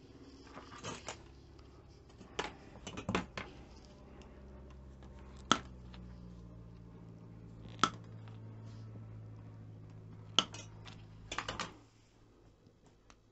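Sharp clicks and light taps of small metal track parts and rails being handled and set down on a wooden workbench, a few of them single loud clicks a couple of seconds apart. A low steady hum runs under them and stops near the end.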